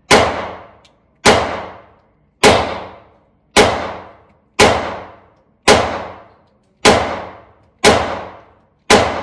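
FMK 9C1 Gen 2 9mm pistol firing nine shots at a steady pace of about one a second, each shot ringing off the walls of an indoor range. It cycles every round without a stoppage.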